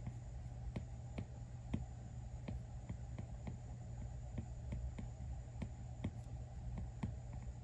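Apple Pencil's plastic tip tapping and scraping on the iPad Pro's glass screen in short sketching strokes: light, irregular clicks a few times a second. A steady low electrical hum runs underneath.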